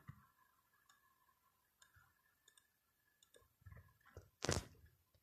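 Faint computer mouse clicks over quiet room tone with a faint steady hum. A brief, louder noise comes about four and a half seconds in.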